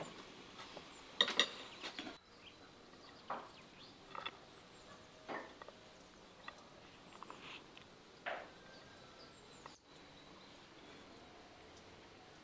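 Scattered light clinks and taps of dishes and kitchenware, with the loudest cluster about a second in.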